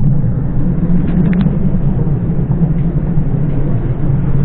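Steady low rumble inside a passenger train carriage, with a few faint clicks about a second in.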